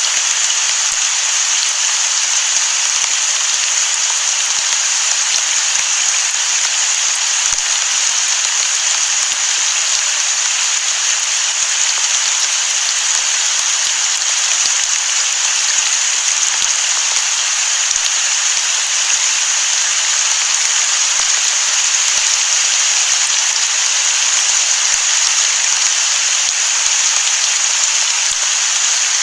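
Steady rain falling: an even, unbroken hiss with faint drop ticks, and no thunder in this stretch.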